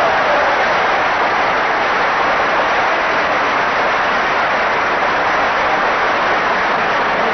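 Large concert audience applauding: a dense, steady wash of clapping.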